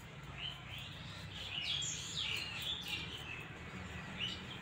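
Birds chirping: a string of short, high chirps, busiest in the middle and with one more near the end.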